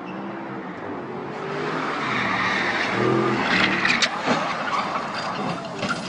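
Car tyres skidding on asphalt as a car slides out of control, over the running of car engines, with several sharp knocks about four seconds in.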